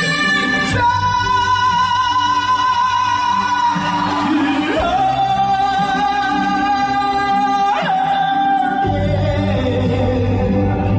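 A singer holds long, high sustained notes over a backing track, sliding between them: one long note, then a slide down into another held note, then a slide into a lower one. The backing's bass comes in stronger near the end.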